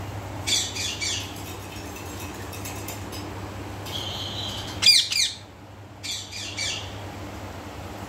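Baby Alexandrine parakeets chirping and squawking in short clusters of harsh, high calls; the loudest squawk comes about five seconds in. A low steady hum runs underneath.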